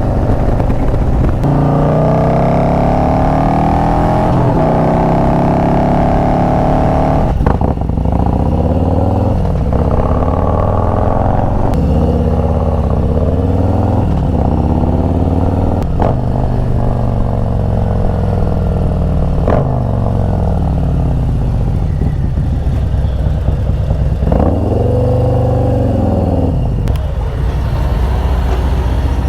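Harley-Davidson V-twin motorcycle engine running under way, its revs climbing and falling again and again as the bike accelerates and eases off, with a few brief sharp sounds along the way.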